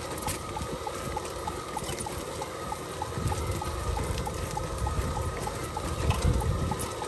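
A Burro autonomous farm robot driving along a row, with a steady run of short high beeps, about four or five a second, over a low rumbling noise.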